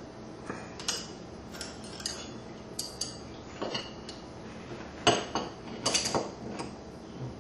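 Irregular metallic clicks and clinks of the lock ring being tightened on a bullet-seating die in a reloading press, to keep the die from moving. The loudest clicks come about five and six seconds in.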